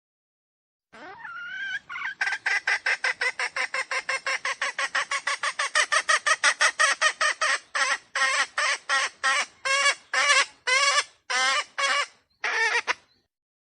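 Red junglefowl calling: a rising call about a second in, then a rapid run of short calls, about seven a second, that slows to separate calls a few times a second and stops shortly before the end.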